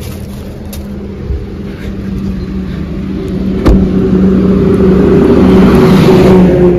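Car engine running with a steady low hum. A single sharp knock comes about three and a half seconds in, then a loud rushing noise builds over the last few seconds and drops away at the end.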